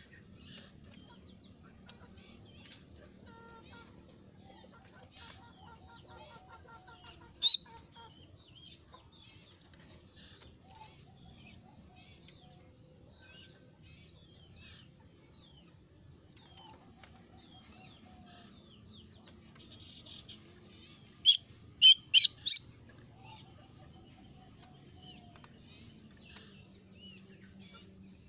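A moulting jongkangan songbird calling in short, scattered chirps and brief runs of repeated notes, with one loud sharp call about seven seconds in and four loud calls in quick succession near the end. Its voice is hoarse and it is not singing in full, a sign of the moult. A steady low hum runs underneath.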